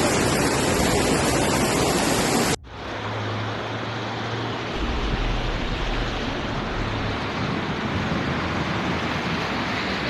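Loud, steady rushing of floodwater. About two and a half seconds in it cuts sharply to a second, slightly quieter rush of water with a low hum under it.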